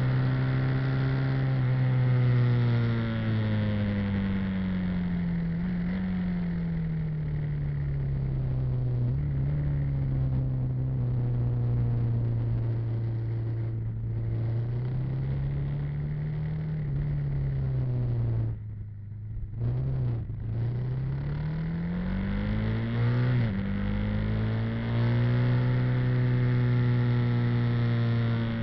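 Engine of the vehicle carrying the camera, running under way on the road, its pitch slowly falling and rising as the revs change. About two-thirds of the way through the engine note eases off and goes quieter for a moment, then the revs rise quickly and settle into a steady note.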